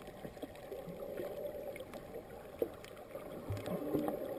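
Muffled underwater ambience picked up by a submerged camera: a steady low wash of water noise with scattered faint clicks.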